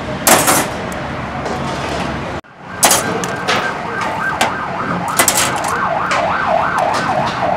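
Steel kebab skewers clanking and clinking as they are pulled out of grilled chicken and stacked. After a brief drop-out about two and a half seconds in, a siren wails rapidly up and down behind the clinks.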